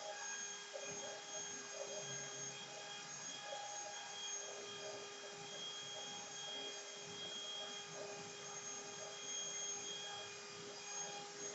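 CNC router running through a cut: a steady motor whine with several higher tones that shift every second or so as the machine's moves change.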